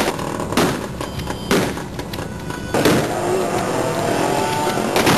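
Gunshots fired into the air by a crowd in celebration, a handful of sharp shots a second or so apart, over continuous crowd noise with men shouting.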